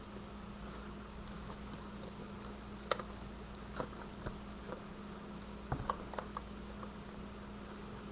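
Scattered light clicks and taps of hard plastic craft supplies, an ink pad and stamps, being picked up and handled on a tabletop. The strongest click comes about three seconds in and a few quick ones come around six seconds, over a faint steady hum.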